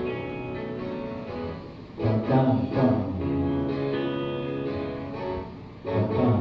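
Music played on string instruments: sustained pitched notes, with new phrases starting about two seconds in and again near the end.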